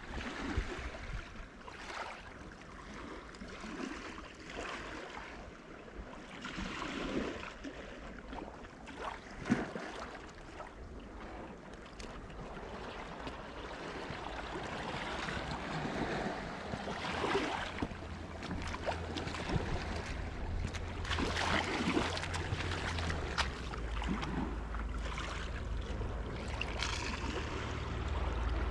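Seafront ambience of sea water washing and lapping at high tide, with scattered small splashes and knocks. Wind buffets the microphone, growing stronger over the second half.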